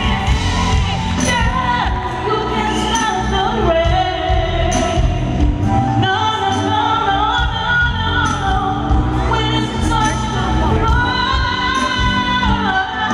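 A woman singing lead into a microphone over a live R&B band with keyboards, bass and drums.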